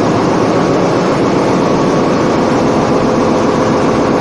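Loud, steady drone of running machinery in a ship's engine room, with faint steady hums running through it.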